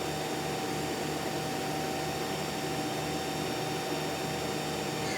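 Mazak Quick Turn 250 CNC lathe spindle running steadily at 2,500 RPM: a constant whine of several steady tones over an even motor hiss.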